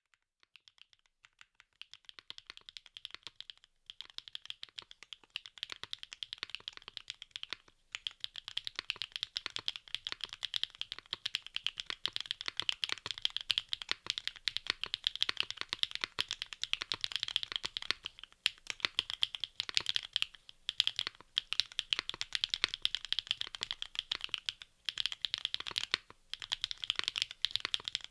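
Typing on a QK65 R2 mechanical keyboard with SAROKEYS BSUN BCP linear switches, PBT keycaps and an aluminium plate: a rapid, dense run of keystroke clacks. The clacks are sparse at first and pick up to continuous fast typing after about two seconds, with a few brief pauses.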